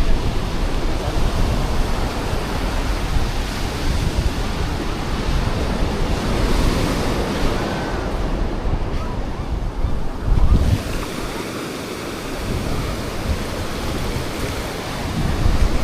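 Sea waves breaking and washing up on the shore, with wind buffeting the microphone in low rumbles, heaviest about ten seconds in and again near the end.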